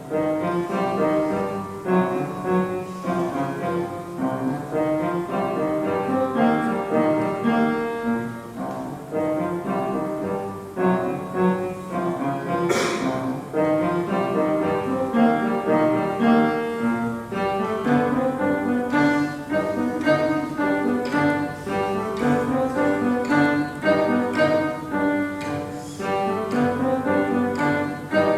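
Piano trio of piano, violin and cello playing a classical piece, the music starting right at the beginning.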